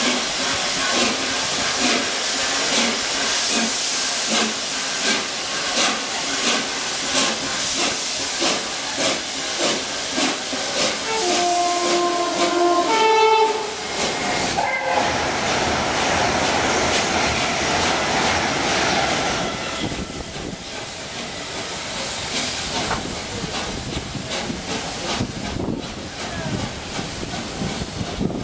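Peppercorn A1 Pacific steam locomotive 60163 Tornado pulling out: even exhaust chuffs with steam hiss, then a whistle sounded in two parts about eleven seconds in. After that comes the rush and rumble of the coaches rolling past, fading away near the end.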